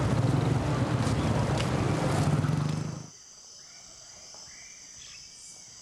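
Street traffic, with motorcycle and car engines running, fades out about three seconds in. It leaves faint, steady insect trilling.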